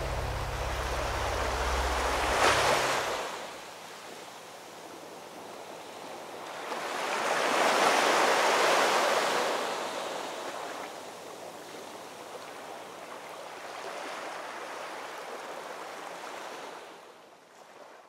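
Sea waves breaking and washing back in slow surges, three of them, the loudest about eight seconds in, fading out at the end. Background music dies away in the first three seconds.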